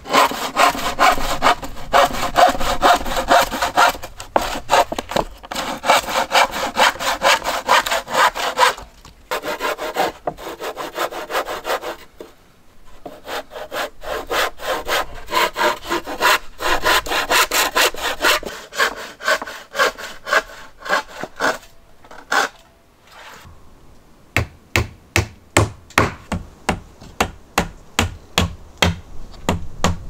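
Hand saw cutting through a wooden board in quick, rhythmic back-and-forth strokes, in several runs with short pauses. Near the end come sharp knocks, about two or three a second: a hammer on the roof boards.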